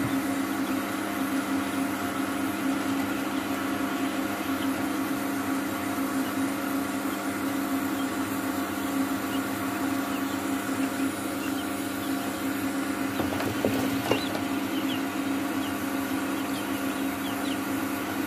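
Steady electric hum of a small motor, with faint high chick peeps in the last third and a light knock about fourteen seconds in.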